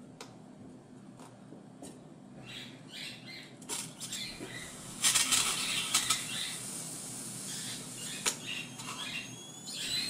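Scissors snipping and rubbing at a slime-filled rubber balloon: scattered clicks and crinkly rustling, loudest about five seconds in, with a few thin high squeaks near the end.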